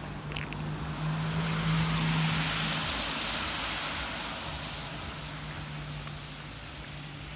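Outdoor ambience: a rushing noise that swells to a peak about two seconds in and slowly fades, over a steady low hum.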